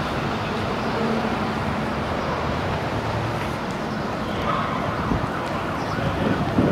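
Steady street and traffic noise, an even rumbling hiss with a few small knocks near the end.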